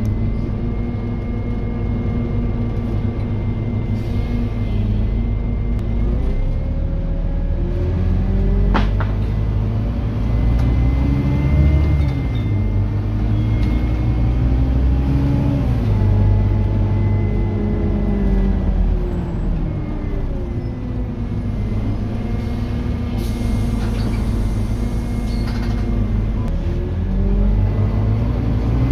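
Scania N230UD double-decker bus's five-cylinder diesel engine heard from the upper deck, its pitch climbing and dropping back several times as the bus accelerates and changes gear, with a thin steady high whine over it.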